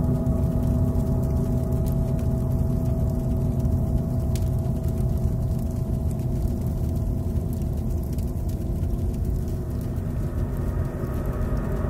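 A steady low rumbling drone with several held tones over it, unchanging throughout, of the kind laid under a promo as sound design.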